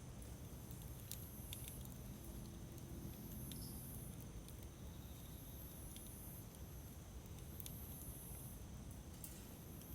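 Campfire burning with a low rumble and scattered sharp crackles and pops, about one every second or two.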